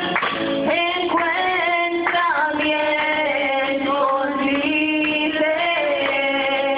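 Worship song: a woman's singing voice holding long, slowly bending notes over musical accompaniment.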